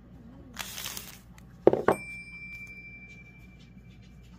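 Paper and plastic wrapping crinkling, then two sharp knocks as a steel chainsaw clutch drum is set down on a wooden table, leaving a high metallic ring that lingers for a couple of seconds.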